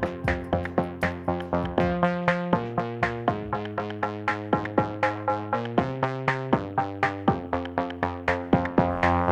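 Electronic background music: synthesizer chords over a steady, quick drum-machine beat.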